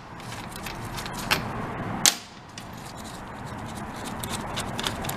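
Light metallic clicks and clinks of small steel valve-body bolts being handled and set aside, with one sharper click about two seconds in.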